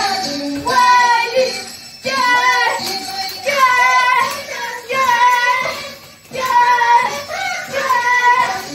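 Andean carnival song for the comparsa dance: high voices singing short phrases of about a second each, with brief breaks between them, over the music.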